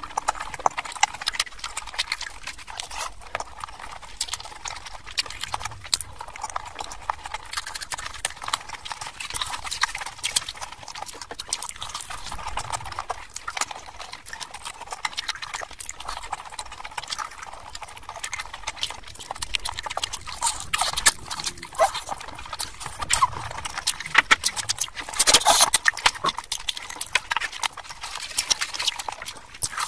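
Close-miked chewing and mouth sounds from eating mutton curry with soft luchi: dense wet clicks and smacks. A louder flurry comes near the end.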